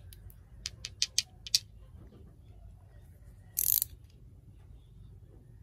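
A quick run of light clicks and taps as plastic gel polish bottles are handled, then, a little past halfway, a short rasping snip of scissors cutting the plastic wrap on a bottle.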